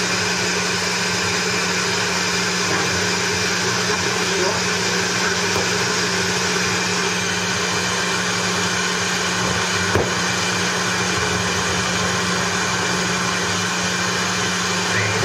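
Steady radio static hiss with a low hum from a homemade crystal radio played through a guitar amp, as its variable tuning capacitor is slowly turned in search of signals. A single click sounds about ten seconds in.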